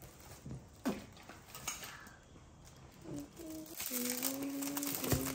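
Shiny gift wrapping being handled and torn open, soft taps at first, then crinkling from about two-thirds of the way in. A steady pitched tone, voice-like, joins the crinkling over the last second and a half.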